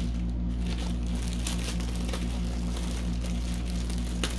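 Clear plastic sleeve around a rolled canvas crinkling as it is handled, in scattered small crackles over a steady low hum.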